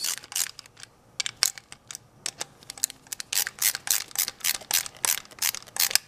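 Ratcheting screwdriver clicking as screws are driven into a GM power door lock actuator's motor cover. The clicks are scattered at first, then come in a quicker run in the second half.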